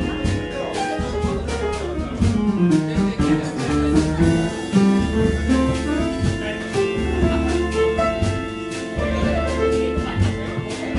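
Live jazz trio of keyboards, bass and drums playing, with deep held bass notes and frequent drum and cymbal strokes; a run of notes falls in pitch about two seconds in.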